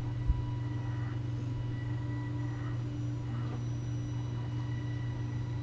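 Electric motor and geared drivetrain of an Axial SCX10 Deadbolt radio-controlled rock crawler running steadily at crawling speed, with one sharp click about a third of a second in.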